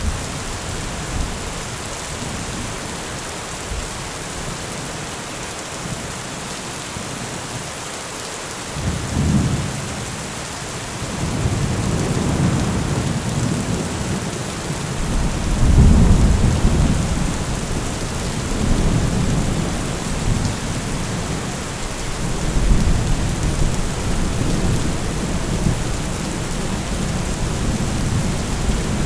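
Heavy rain falling steadily on a metal roof. Low thunder comes in about a third of the way through, swells to its loudest around the middle, and goes on rumbling in waves.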